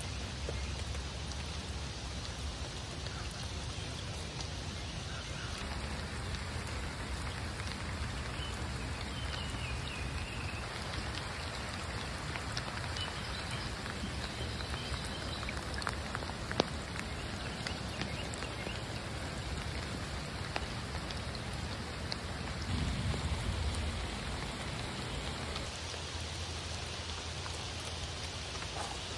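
Steady rain falling on river water and wet rocks, an even hiss of drops. A single sharp click sounds about halfway through.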